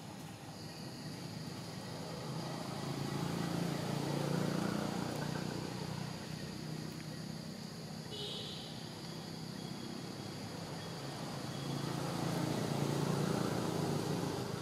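Low engine drone of passing motor vehicles, swelling and fading twice. A faint high chirp about eight seconds in.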